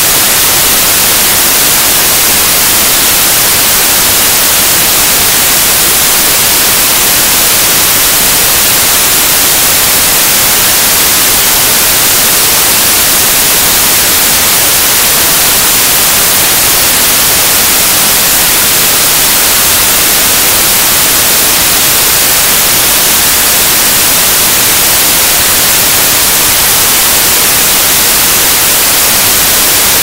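Whitewater of a river falls rushing over rock ledges: a loud, steady hiss that does not change.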